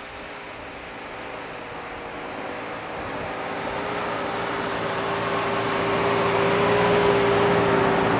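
Nissan Patrol's TB48 4.8-litre straight-six petrol engine pulling the SUV through deep snow, growing steadily louder as it comes closer, a steady engine whine over the hiss of tyres churning snow.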